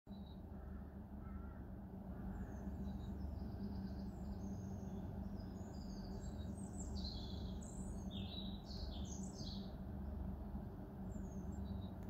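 A songbird singing a fast series of high, clear notes, densest in the middle of the stretch, over a steady low background hum.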